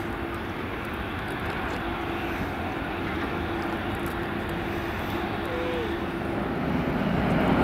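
Steady jet engine noise from an airliner on the airfield, an even rumble and hiss with a faint steady hum. It grows louder over the last second or so.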